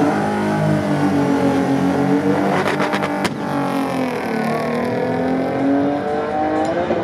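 Two drag cars, a turbodiesel VW Lupo on nitrous and a BMW E30, launching off the line and revving hard through the gears. About two and a half seconds in comes a rapid string of cracks ending in one sharp bang, and the engine pitch then swoops down and up again.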